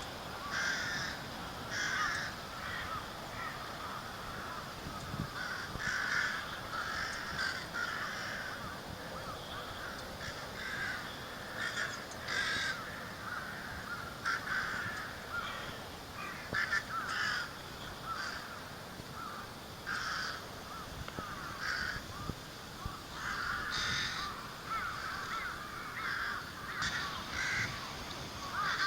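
A mixed flock of rooks and large-billed crows cawing: many short caws, irregular and often overlapping, a call every second or so.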